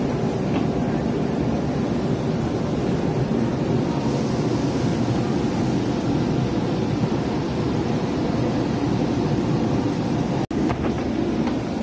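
Steady rumbling noise inside an MRT train carriage standing at a station platform with its doors open. The sound cuts out for an instant near the end.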